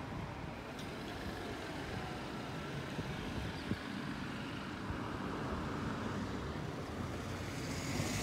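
Street traffic ambience: a steady low rumble of cars on a nearby town road, with two faint clicks a little past the middle.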